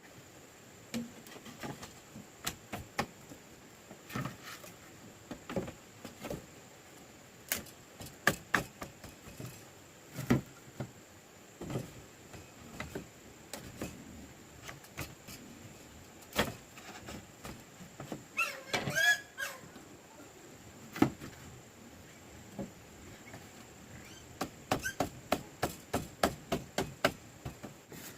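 Irregular knocks and taps of hand work, some in quick runs near the end, with a short animal call about two-thirds of the way through.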